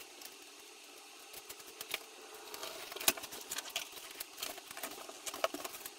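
Knife slicing through packing tape on a cardboard box: faint scratching and crackling with scattered sharp clicks, busier from about a second and a half in.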